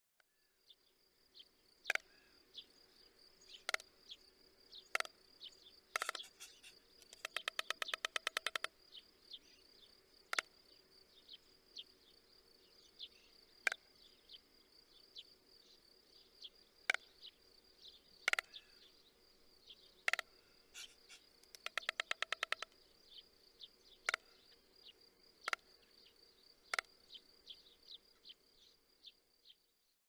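White stork clattering its bill: two bursts of rapid wooden rattling, about ten strokes a second, the first about seven seconds in and lasting about a second and a half, the second about twenty-two seconds in and lasting about a second. Underneath runs a steady high-pitched trill with scattered sharp clicks and small chirps.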